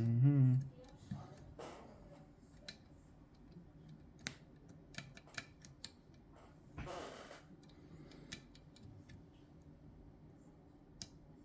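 Scattered small metallic clicks and ticks of a lever pick and tension tool working the levers of a Chubb GPO No.6 lever lock, with a short scrape about seven seconds in.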